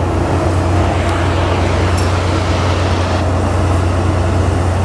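Railway track maintenance machinery running steadily with a constant low drone, with two faint brief clicks about one and two seconds in.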